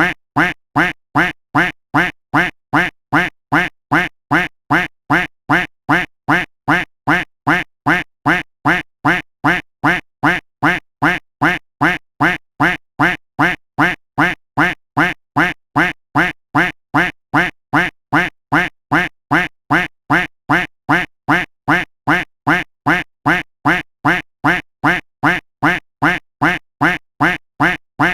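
A duck quack sound effect looped without a break: the same short quack repeats at an even pace, about two and a half times a second.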